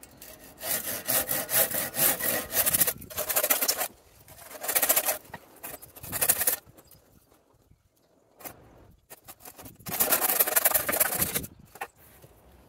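Coarse-toothed hand saw cutting through a spruce Christmas tree's trunk and branches in three bouts of rapid strokes, with short pauses between.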